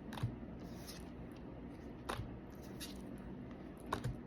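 Light handling of trading cards and their packaging: a few faint, separate clicks and soft scrapes over a low room hum.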